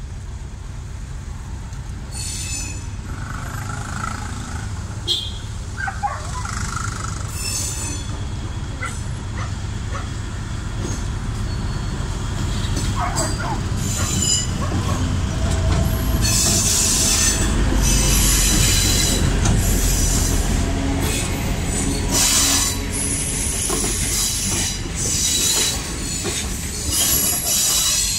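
Diesel passenger train approaching and passing close by. A low engine rumble builds as the locomotive draws level about halfway through. Then the coaches run past, louder, with wheels clattering and squealing on the rails.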